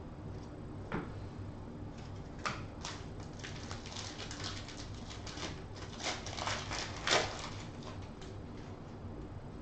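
Foil trading-card pack crinkling and crackling as it is torn open by hand, with the loudest rip about seven seconds in. A few sharp clicks of cards being handled come before it.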